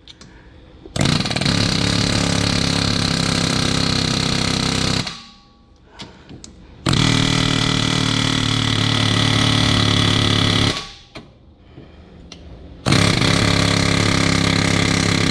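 Pneumatic air hammer firing in three bursts of about four seconds each, with short pauses between, hammering on a bolt threaded into a seized rear wheel hub to break it free.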